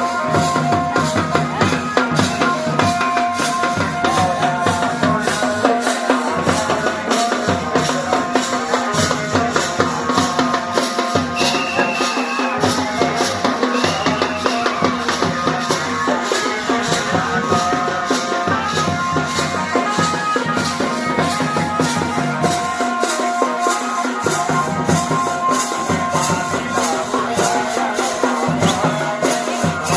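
Pahari folk music of a Tandi song: voices in a melody over a fast, steady beat of drum and rattling percussion strokes.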